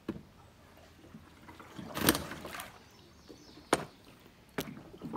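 Kayak paddling sounds: several sharp knocks and bumps against the boat, with a louder, longer splash-like rush about two seconds in.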